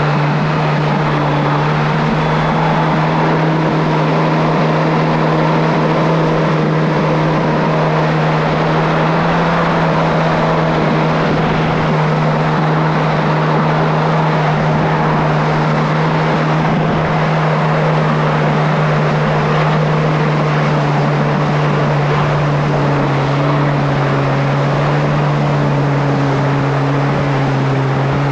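Kawasaki SX-R 1500 stand-up jet ski's four-cylinder four-stroke engine running at a steady cruising throttle, with water rushing along the hull. The engine note eases slightly lower in the last few seconds.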